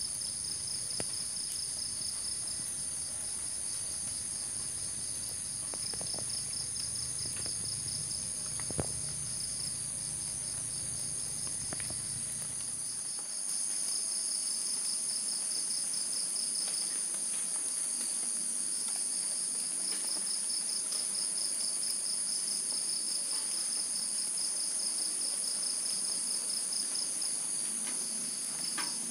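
Night insect chorus of crickets and other insects: a steady shrill at several high pitches, the lowest a fast pulsing trill, with a few faint clicks.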